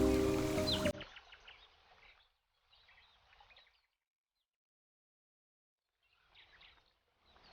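Background music with birds chirping, cut off sharply just under a second in. After that, only faint, scattered bird chirps come in short clusters, with silent gaps between them.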